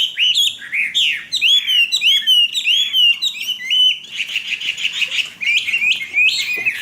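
Caged Chinese hwamei singing loudly: a quick run of varied whistled notes that slide up and down, turning into a denser, faster chatter about four seconds in.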